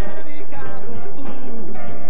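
Live band music playing steadily.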